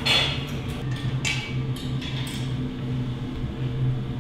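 A steady low hum, with a few short clicks or taps in the first two seconds or so.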